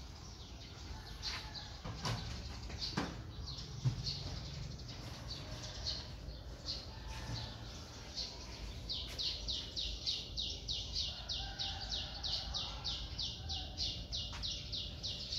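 Small birds chirping, with a few sharp clicks in the first four seconds. From about nine seconds in, one bird repeats a quick falling chirp about four times a second.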